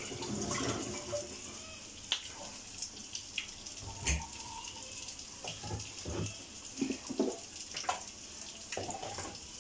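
Hot cooking oil sizzling steadily on a gas stove, with scattered small pops and clicks.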